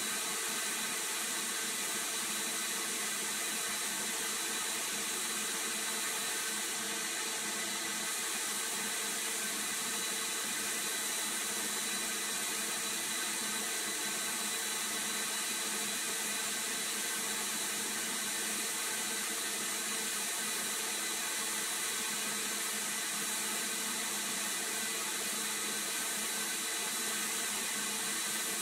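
Abrasive blast nozzle in a sandblasting cabinet hissing steadily as it strips paint and rust from the pressed-steel cab of a toy truck, with a faint steady hum underneath.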